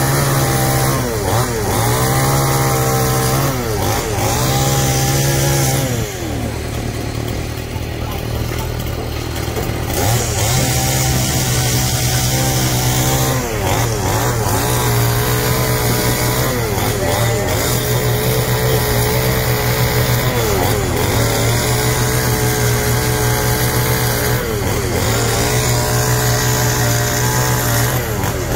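Chainsaw cutting through a thick wooden beam, its engine revving up and dropping back again and again. About a quarter of the way in it eases off for a few seconds, then cuts steadily again.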